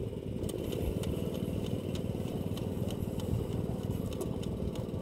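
A small engine running steadily at constant speed, with a light ticking about four times a second.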